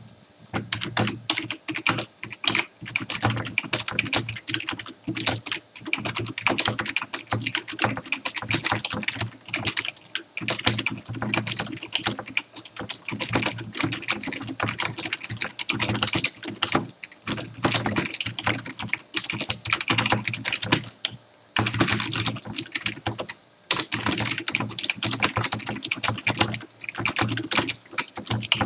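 Fast, continuous typing on a computer keyboard: a dense run of key clicks with brief pauses, the longest about two seconds long about three-quarters of the way through.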